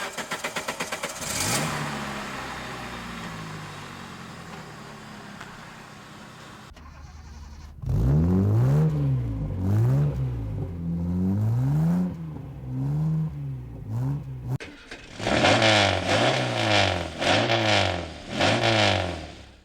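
Sports car engines in a run of separate recordings. In the first, a starter cranks rapidly for about a second, the engine catches with a rev and settles to idle, fading away. Then an engine is blipped over and over, its pitch rising and falling, and near the end a louder, harsher engine does the same.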